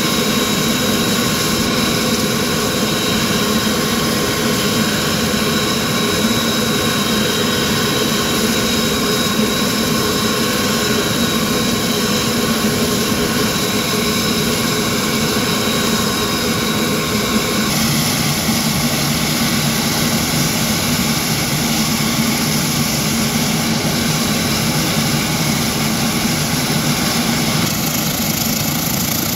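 A Saab 340's twin General Electric CT7 turboprop engines running on the ground, a steady propeller drone under several high whining tones. The pitch of the whine shifts abruptly about two-thirds of the way through, and again near the end, as the aircraft starts to move off.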